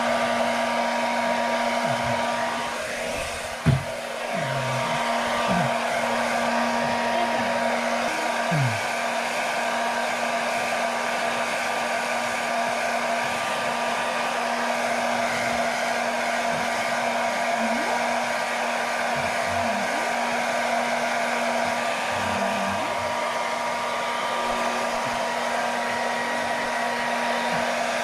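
Hand-held hair dryer running steadily, blowing on a Labrador retriever's wet coat after a bath. There is a short dip in level and a single knock about four seconds in.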